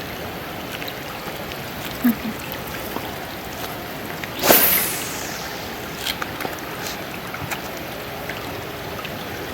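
River water flowing steadily, with one brief sharp whoosh about four and a half seconds in.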